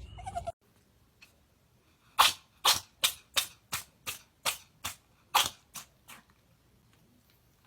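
An animal sneezing in a rapid fit of about eleven short, sharp sneezes, roughly three a second.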